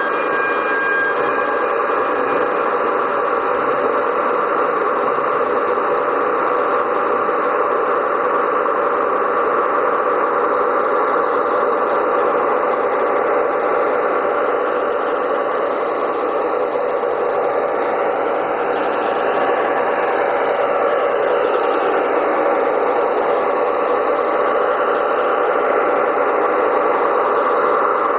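Sound modules of two Gauge 1 model BR 211 diesel locomotives running together, playing a steady diesel engine sound through their speakers.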